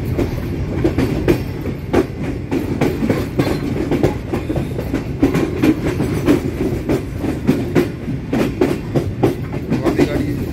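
Awam Express passenger coaches running along the track, heard from aboard: a steady rumble with rapid, uneven clacks of the wheels over the rail joints.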